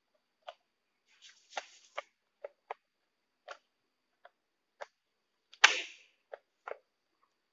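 Sharp plastic clicks and taps as a ceiling-fan switch's plastic cover box is pressed and fitted into place, about a dozen irregular clicks with the loudest, a brief rattling snap, about five and a half seconds in.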